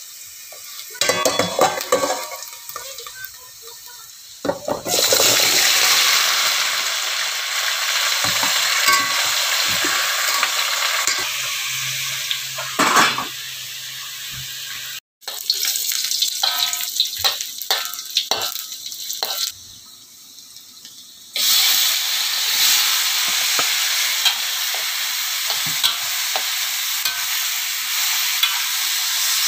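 Food frying in hot oil with a steady sizzle while a wooden spatula stirs and scrapes it around the pan. The sizzle cuts in and out several times, with quieter stretches of knocking and clattering in between.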